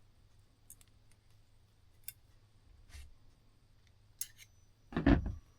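Small, sharp metallic clicks from tools and parts while a clock movement is being taken apart, with a louder knock about five seconds in.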